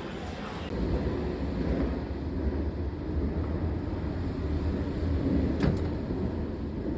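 A steady low rumble, like a vehicle or wind on the microphone, with one brief sharp click about five and a half seconds in.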